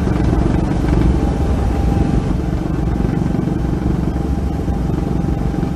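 A helicopter running, a loud, steady drone of rotor and engine as heard from on board the aircraft.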